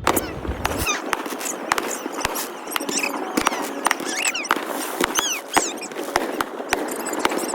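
Fireworks going off in rapid succession: many sharp pops and crackles, with short high squealing whistles scattered among them.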